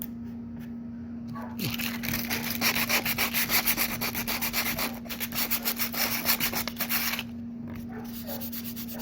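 Hand sanding of small chips and cracks on a stand-up paddleboard's surface, preparing them for epoxy: quick back-and-forth rasping strokes, about four a second, that pick up about two seconds in and stop about two seconds before the end.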